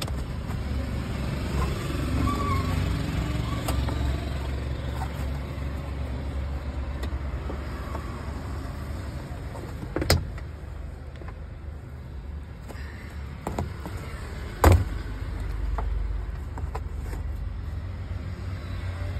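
Hands working the plastic roof-trim fittings in a car's headliner, with two sharp plastic clicks, one about ten seconds in and another about five seconds later, over a steady low rumble.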